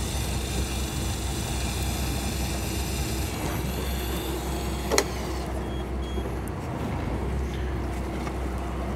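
Boat engine running with a steady low hum. For the first five seconds a high motor whine sits over it, which plausibly comes from a Shimano ForceMaster electric reel winding line in on a hooked fish. The whine ends with a sharp click about five seconds in.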